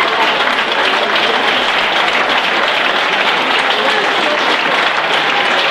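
Crowd applauding steadily, with a few scattered voices.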